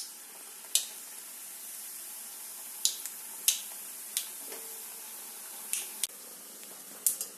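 Maida papdi dough rounds deep-frying in hot oil in a kadhai: a steady sizzle with sharp crackles scattered through it.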